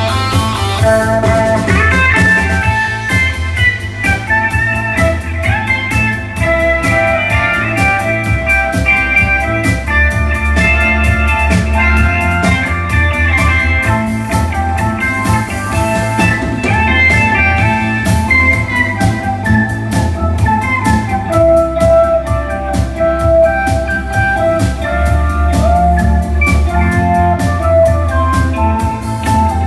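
Live band music: a melody over guitar, bass and a drum kit keeping a steady beat.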